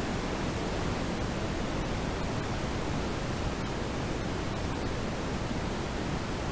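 Steady road noise of a car in motion heard from inside the cabin: an even, low rushing of tyres and wind with no engine note or other events standing out.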